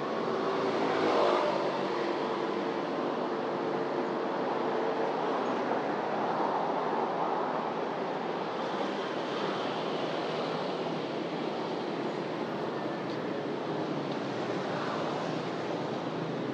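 Steady city street traffic noise, with a vehicle passing close about a second in and an engine note that holds for the first few seconds.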